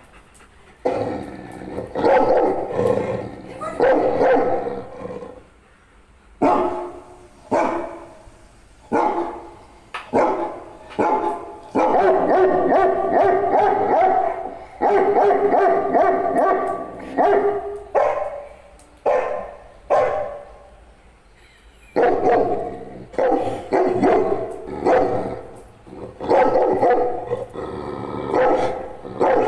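Dog barking repeatedly, in runs of barks with short pauses between them.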